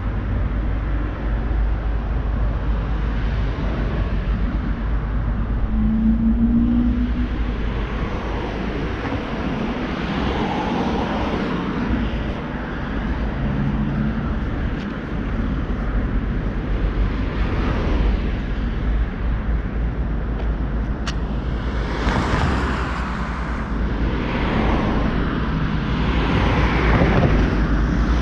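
City street traffic: cars passing on a wide boulevard, with the noise swelling several times in the second half as vehicles go by, over a constant low rumble.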